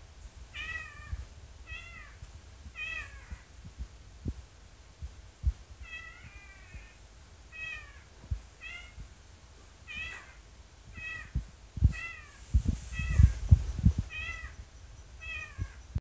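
Madagascar drongo mimicking a cat's meow: short, downward-bending mewing calls repeated about once a second, with a gap of a couple of seconds early on. Low thumps sound under the calls, heaviest near the end.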